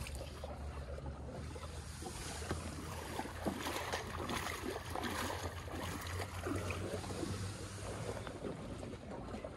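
Oars dipping and splashing as an inflatable boat is rowed through water so shallow that the oars push off the bottom, with a low wind rumble on the microphone.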